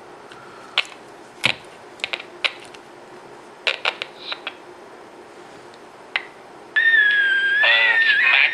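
Scattered sharp clicks and taps, then about seven seconds in an AM transistor radio breaks into a loud, wavering high-pitched squeal mixed with bursts of garbled station audio. The owner puts the squealing down to a bad solder joint.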